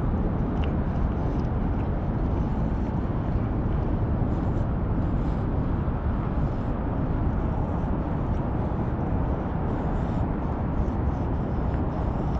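Steady low rumbling noise of wind buffeting the microphone, with faint small clicks of a cat chewing and licking wet food from a steel dish close by.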